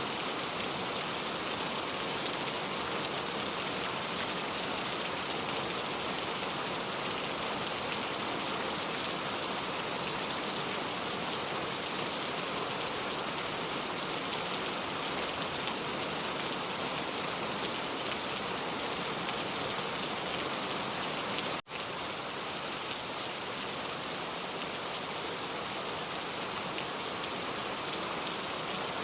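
Pouring rain, a steady even hiss of drops falling on surfaces, with a split-second gap in the sound about three-quarters of the way through.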